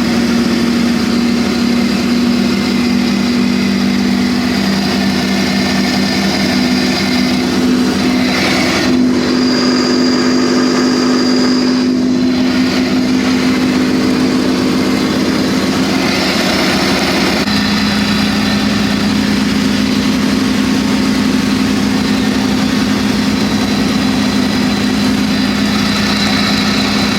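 ATV engine running steadily at a low, even note that shifts slightly about two-thirds of the way through.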